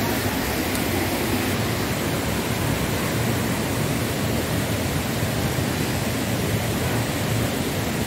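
Stream rushing over rocks and small cascades: a steady, even rush of water.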